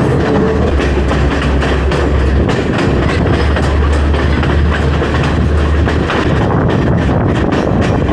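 Passenger train running at speed, heard from the open side of a carriage: a steady rumble of wheels on rails, with the clickety-clack of the wheels over the rail joints.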